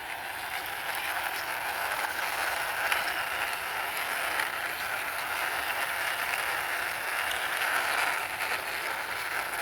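Wheels of a small Spider-Man toy car rolling steadily as it is pushed along by hand, a continuous rolling noise that builds up in the first second.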